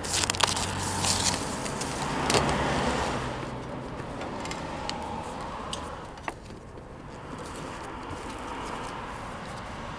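Crackling and rustling as the adhesive backing is peeled off a roof window's pleated flashing apron and the apron is pressed down onto the roof tiles, with a cluster of sharp clicks in the first few seconds.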